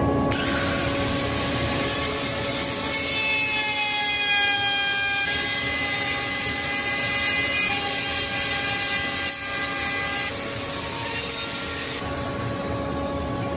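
Electric plunge router switched on and running steadily while it routes a shallow recess into a timber board, with a dust extractor running alongside. The motor's steady whine starts suddenly and its pitch shifts slightly as the bit takes the cut.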